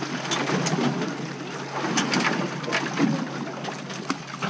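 Open-sea noise aboard a boat: a steady rush of wind and water sloshing against the hull and the cage, with a few short sharp knocks or splashes.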